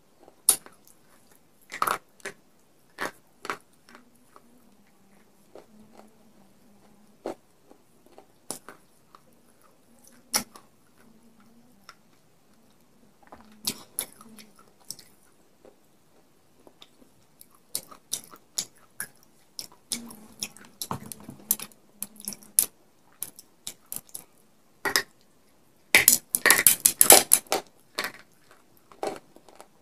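Pieces of baked clay pot coated in white khadi chalk paste being bitten, crunched and chewed, with sharp separate cracks. A dense run of crackling snaps comes a little before the end.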